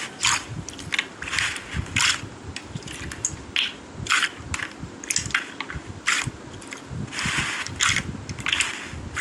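Slime being handled, making irregular crackly pops and squelches: many short clicks mixed with longer squishy bursts at an uneven pace.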